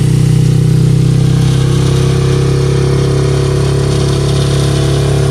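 A vehicle's engine running, heard from on board: a loud, steady drone that holds unchanged throughout.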